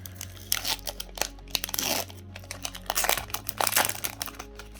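Foil Pokémon booster pack wrapper crinkling and tearing as it is opened by hand, in quick irregular crackles with a few longer rips.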